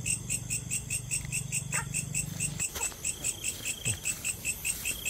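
Night chorus of calling insects and frogs, a fast, regular pulse of high chirps about five a second. Under it a low hum cuts off about halfway through, and there are a few faint knocks of handling.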